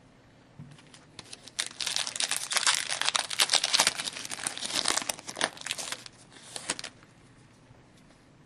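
Wrapper of a hockey trading card pack being torn open and crinkled, a run of crackling for about five seconds that stops near the end.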